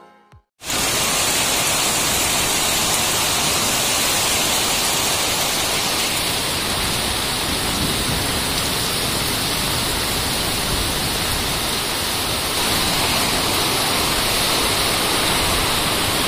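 Heavy rain pouring down in a steady, dense hiss that starts abruptly about half a second in.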